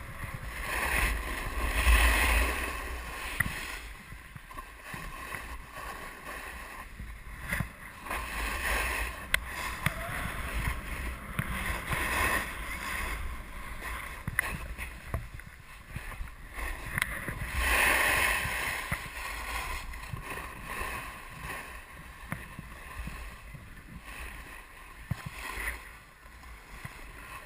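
Skis hissing and scraping over packed snow in a series of turns, the noise swelling with each turn, with wind buffeting the camera microphone underneath.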